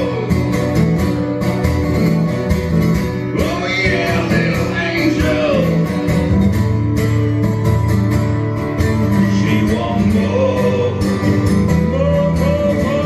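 Live acoustic music: two acoustic guitars strummed together with a man singing into a microphone, playing steadily without a break.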